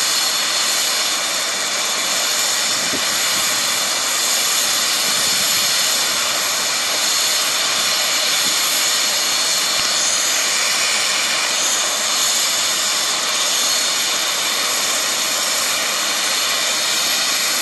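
Turbine-powered air ambulance helicopter running at ground idle on its landing pad with the rotor turning: a steady, high-pitched turbine whine over an even rushing hiss.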